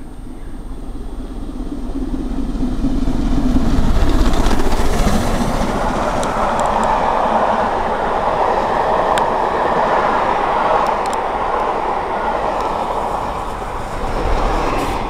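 LMS Princess Coronation Class 4-6-2 steam locomotive 46233 Duchess of Sutherland passing at speed, loudest about four seconds in. Its coaches' wheels follow with a steady rush and clatter over the rails. Near the end a further low rumble comes as the Class 47 diesel on the rear goes by.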